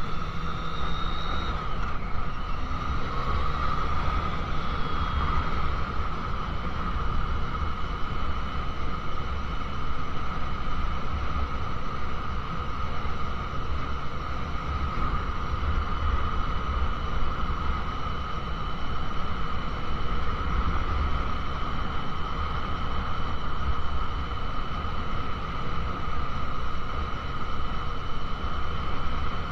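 Wind buffeting the camera microphone over the steady drone of a 2001 Honda CBR600 F4i's inline-four engine cruising on the road. The engine note rises briefly near the start, falls at about two seconds, and then holds steady.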